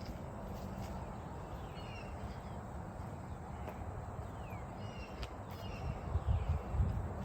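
Small birds chirping several times, short high chirps and quick falling notes, over a steady low rumble. A few dull low thumps come near the end.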